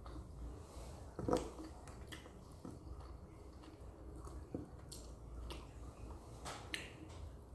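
A person eating close to the microphone: chewing and wet mouth smacks with scattered small clicks, the loudest about a second in.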